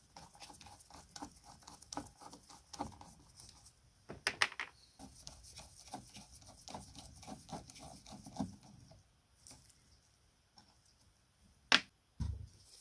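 Quick irregular clicks, taps and scrapes of small parts and hand tools being handled, with a louder cluster about four seconds in and one sharp click near the end.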